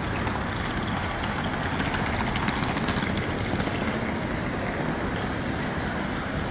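Steady, even din of a busy railway station concourse: indistinct crowd noise and movement, with no single voice standing out.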